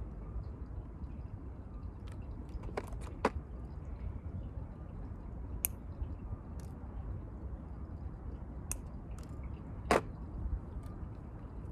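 Scattered small clicks and taps from hand tools and small jewellery parts being handled, the loudest about ten seconds in, over a steady low outdoor rumble.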